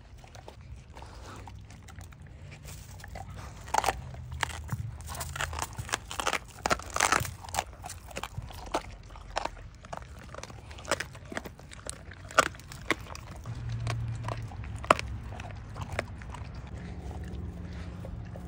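Two Doberman Pinschers licking and crunching frozen raw food and kibble packed into rubber enrichment toys: a long run of sharp, irregular crunches and clicks, thickest a few seconds in and thinning out near the end.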